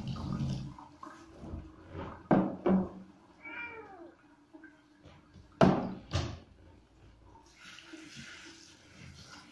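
A cat meowing once about three and a half seconds in, a short call that rises and falls. A few loud thumps come before and after it, and near the end a handheld shower sprays with a steady hiss.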